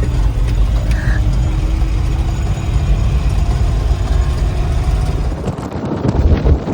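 A large vehicle's engine running steadily with a deep rumble. About five and a half seconds in, the sound changes to a rougher, noisier rush.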